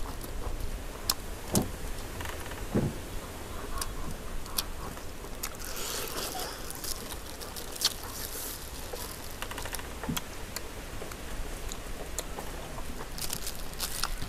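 Close-miked eating: roast chicken being torn apart by plastic-gloved hands and chewed, heard as scattered small clicks and rustles, with a longer rustle about six seconds in.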